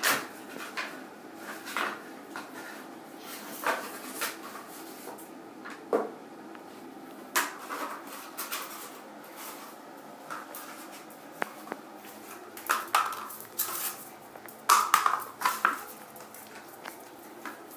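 A small dog playing with a cardboard toilet paper roll on a tile floor: irregular light clatters, knocks and scrapes, with a busier run of them about fifteen seconds in.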